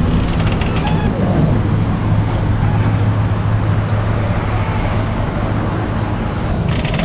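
Steady low engine hum over road traffic noise.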